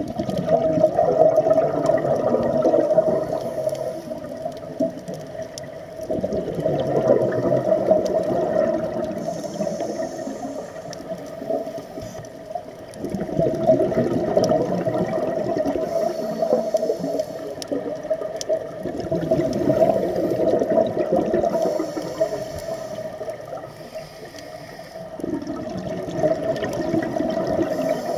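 Scuba diver breathing out through a regulator underwater: bubbling bursts about every six seconds, five in all, with a faint steady hum underneath.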